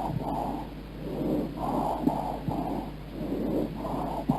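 Patient's whispered words heard through a stethoscope over consolidated lung: a run of muffled, breathy syllables that come through more clearly than over normal lung. This is whispering pectoriloquy, a sign of consolidation. A steady low hum lies under it.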